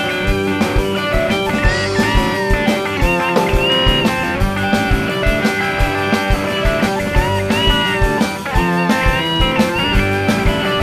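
Southern rock band playing live: a Stratocaster-style electric guitar plays a lead line with bent notes over a steady drum beat and bass.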